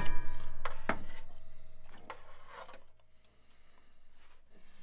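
Hammer blow on a steel punch held against a Wilton bullet bench vise, trying to drive out a seized pin: a sharp metallic strike at the very start, then ringing that dies away over about three seconds, with a few lighter knocks along the way. A steady low hum runs underneath.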